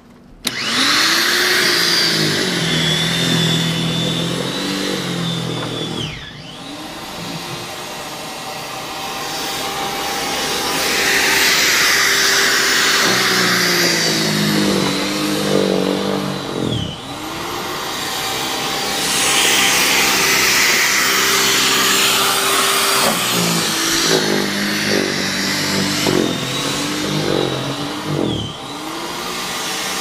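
Corded electric snow thrower switched on about half a second in and running, its motor whine sagging in pitch and recovering about three times as it bites into the snow.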